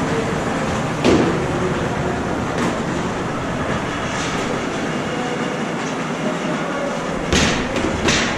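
Steady machinery noise in a factory workroom, broken by a few knocks and thuds: one about a second in and two close together near the end.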